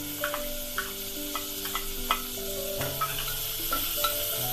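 Chopped capsicum and tomatoes sizzling in hot oil in a pressure cooker, with a spoon stirring and knocking against the metal pot several times.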